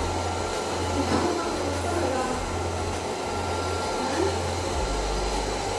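Eureka Forbes robot vacuum-mop running: a steady whir from its suction fan and side brushes as it drives across a hard floor. Its low hum drops slightly in pitch about five seconds in.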